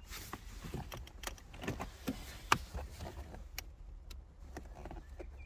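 Plastic interior trim on a Mazda MX-5 centre console creaking and clicking as it is pulled up by hand, with one sharper click about two and a half seconds in as a retaining clip lets go.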